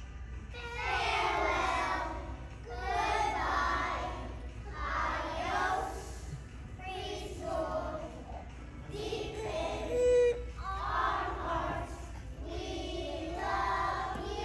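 A group of young children singing a song together in short phrases, possibly over a backing track. There is one brief, louder sound about two-thirds of the way through.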